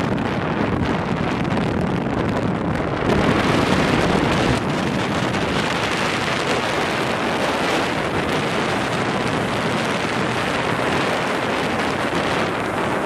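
Wind rushing over the microphone of a moving motorboat, with the boat's engine and water noise running steadily beneath; a stronger gust comes about three seconds in.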